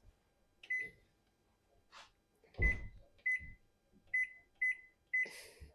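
Microwave oven keypad beeping as the cooking time is entered: six short beeps, all at one pitch, spaced irregularly. A low thump comes about two and a half seconds in.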